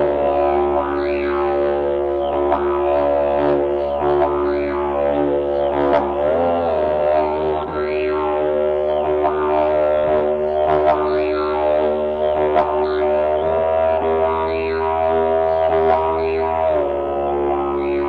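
Carbony Slide Super Boom Didge, a long slide didgeridoo, played as a continuous drone in a road tunnel. Its tone sweeps rhythmically about once a second as the player shapes the sound with mouth and breath. The drone's pitch bends about six seconds in and changes again near the end.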